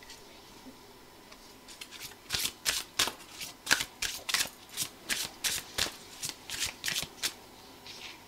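A deck of tarot cards shuffled by hand: a run of quick strokes, about three a second, starting about two seconds in and stopping near the end.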